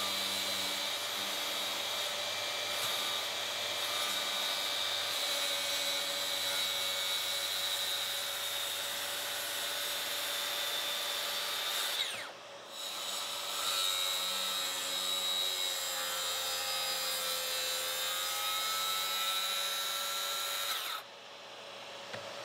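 Makita 36V brushless cordless track saw running with a steady whine as it cuts across a plywood panel along its guide rail: first a shallow scoring pass, then, after a brief stop about halfway, a full-depth pass. The saw stops near the end.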